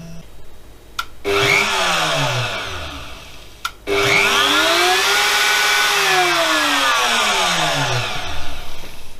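Stepper motors of a Yeti Smartbench CNC router whining as the gantry is jogged along the bed. A short move from about a second in falls in pitch as it slows to a stop. After a click, a longer move rises in pitch, holds steady, then falls again as it decelerates to a stop near the end.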